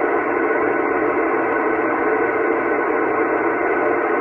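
Kenwood all-mode receiver putting out steady static hiss on the ISS downlink, the narrow, muffled rush of a radio with no intelligible voice coming through.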